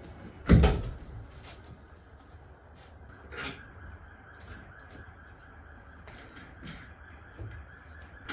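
Heavy wooden thump about half a second in, then several lighter knocks and bumps as a wooden garage door frame is handled.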